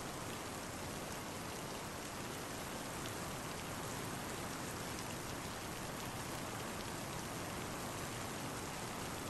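Steady rain falling, an even hiss that neither rises nor breaks.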